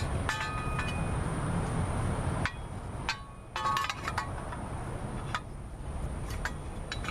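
Metal parts and tools clinking with short ringing tones as a new motor mount is slid into place, a few sharp clinks near the start and again about four seconds in. A steady low rumble stops about halfway through.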